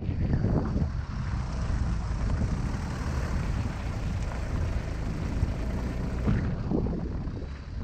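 An off-road 4x4 vehicle driving over a rough track: a steady low rumble of engine and tyres with scattered faint knocks.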